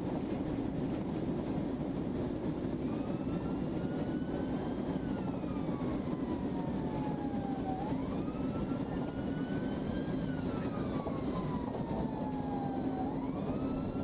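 Police car siren in a slow wail that starts about three seconds in and rises and falls roughly every five seconds, over a steady rumble of road and engine noise.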